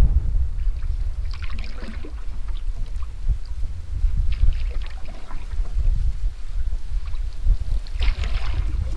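Canoe paddle strokes swishing through the water, three of them a few seconds apart, over a steady low rumble of wind on the microphone.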